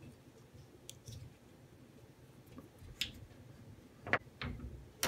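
Scattered small clicks and taps of plastic and metal door hardware being pressed and fitted onto the sauna's glass door and wooden frame, with the sharpest click about four seconds in.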